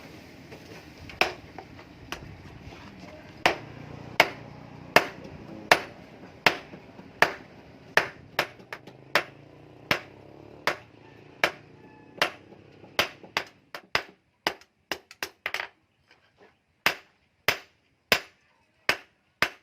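Blacksmith's hand hammer striking steel on an anvil while forging an axe, with sharp ringing blows at an uneven pace of about one to two a second and some quicker runs. A steady background noise under the blows stops about two-thirds of the way through.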